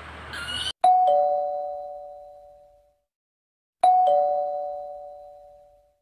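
Two-note ding-dong doorbell chime, a higher note then a lower one, sounding twice about three seconds apart. Each chime rings out and fades over about two seconds.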